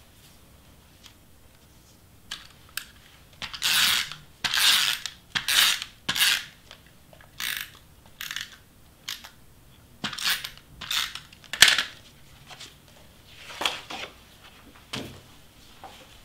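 Stiff cardstock being handled, pressed and slid over a cutting mat: about a dozen short rustling scrapes with a few sharp clicks between them.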